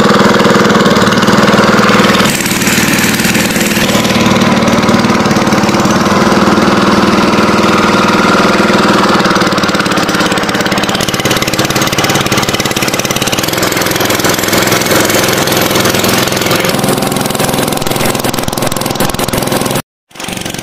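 Small motorboat engine running steadily and loudly under way, with an even pitch; it drops a little in level about two seconds in and cuts off abruptly near the end.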